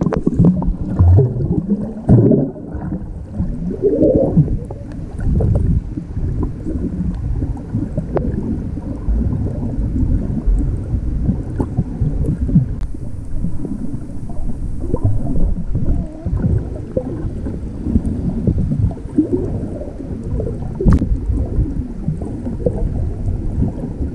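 Muffled underwater sound from a submerged camera: a low, uneven rumble and gurgling of water moving around it, with a few faint clicks.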